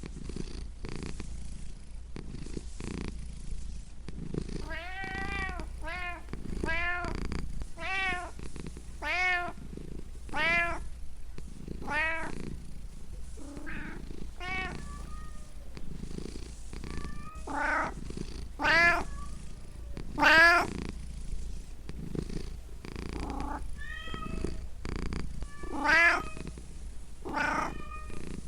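Domestic cat meowing over a steady low purr. A run of short meows that rise and fall comes about once a second from a few seconds in, and louder, more spaced meows follow later.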